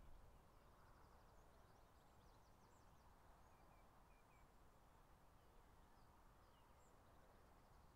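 Near silence: faint outdoor ambience with scattered distant bird chirps.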